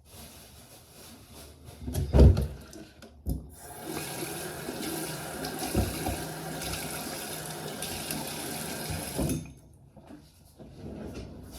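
Water running steadily for about six seconds, then cut off suddenly, after a couple of sharp knocks.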